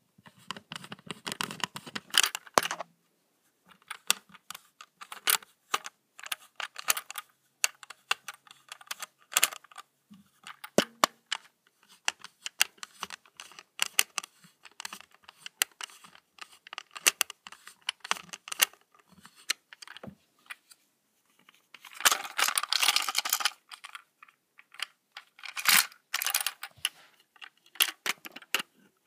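Hands handling a plastic toy train and its packaging: irregular light clicks and taps, with a burst of rustling at the start and another about twenty-two seconds in.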